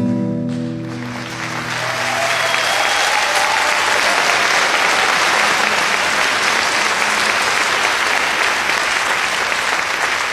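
The last notes of a song fade out in the first second, then an audience applauds steadily.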